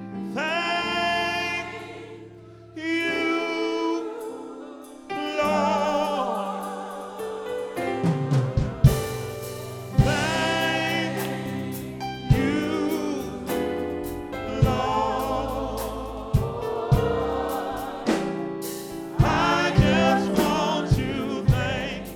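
Gospel vocal group singing a slow song with sustained, wavering notes over instrumental backing. Drum hits join about eight seconds in.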